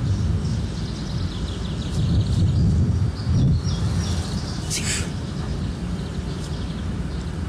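Outdoor ambience on a lawn: birds chirping faintly over a steady low rumble, with a brief rustle about five seconds in.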